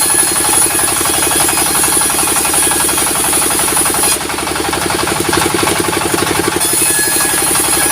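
Sawmill engine running with a rapid, even pulsing beat, joined by a high hiss that stops about four seconds in and comes back near seven seconds.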